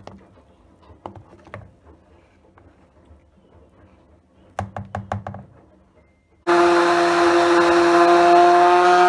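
A few light knocks, then a quick run of about five knocks near the middle. About six and a half seconds in, a handheld stick blender's motor starts abruptly and runs at a loud, steady whine. It is churning cream that has already split into butter grains and buttermilk.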